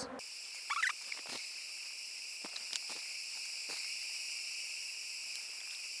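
A steady high-pitched whine with a few faint ticks, and nothing low beneath it.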